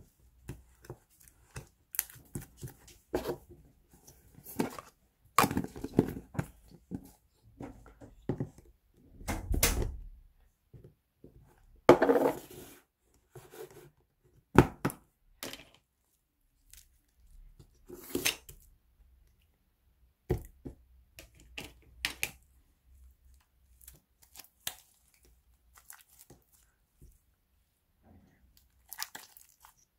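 Soft glitter slime being poked, pressed and stretched by hand in a plastic tub, giving irregular short clicks and brief sticky squishing bursts, the longest a second or so, about nine and twelve seconds in.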